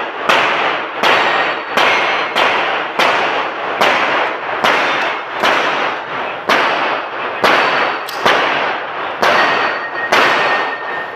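A firearm firing a string of about fifteen shots at an uneven pace, roughly one every half-second to second. Each shot rings on in a short echo off the concrete walls of the range bay.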